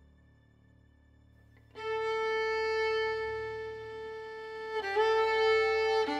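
Background music: a bowed violin playing slow, long held notes, coming in about two seconds in after a near-quiet start and moving to a new note near the end.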